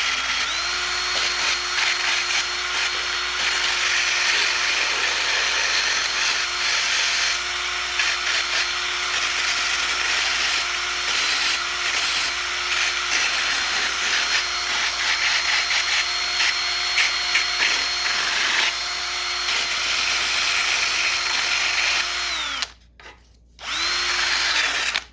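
Electric drill with a sanding disc attached running at high speed, its motor whining steadily under a rough grinding hiss as the disc sands a surface. Near the end it stops, runs for about another second, and stops again.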